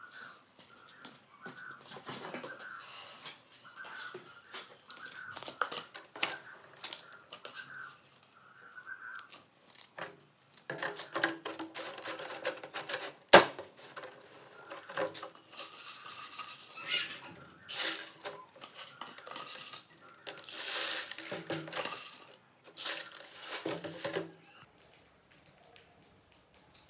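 Hands handling a plastic jar and its screw-on plastic lid: scraping, rustling and clattering plastic, with one sharp click about halfway through.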